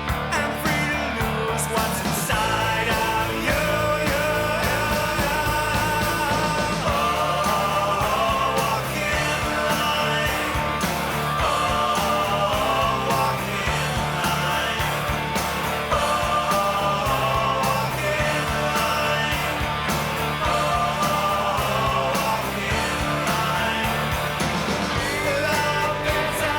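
Rock band recording: electric guitars, bass and drums playing with a steady beat.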